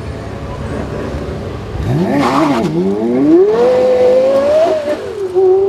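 Supercar engine rumbling low, then accelerating hard from about two seconds in, its pitch climbing with two brief drops at upshifts.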